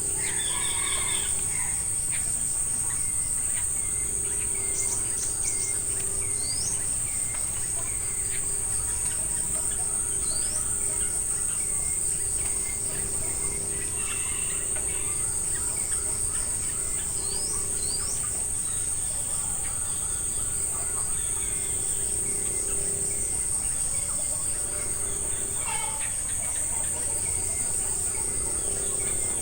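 Steady, high-pitched insect drone with no break, the loudest sound. Over it, birds give short rising chirps in a quick series during the first few seconds and now and then a quick upward-sweeping call.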